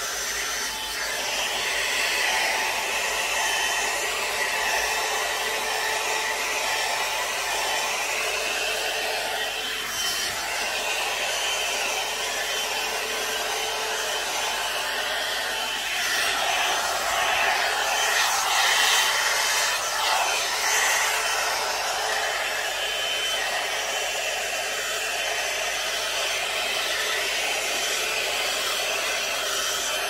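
One-step hot air brush (hair dryer brush) running, a steady rush of blown air that swells and wavers for a few seconds past the middle.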